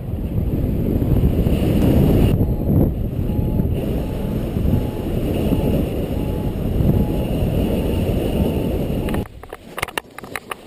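Wind rushing and buffeting over the camera microphone of a paraglider in flight, with faint short beeps repeating about twice a second underneath. Near the end it drops suddenly to a quieter scene with a few light knocks and rustles.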